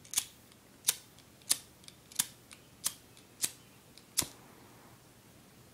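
A lighter being struck over and over: seven sharp clicks, about three every two seconds, stopping about four seconds in.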